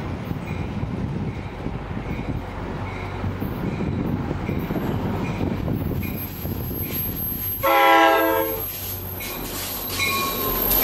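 NJ Transit GP40PH-2B diesel locomotive approaching and passing close, its engine and wheels rumbling while a bell dings steadily about twice a second. About three-quarters of the way through it sounds one horn blast of about a second, and a second blast begins near the end.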